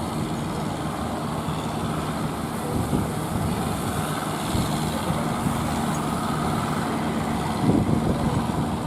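A boat's engine running steadily at an even pitch, over a constant hiss of wind and water.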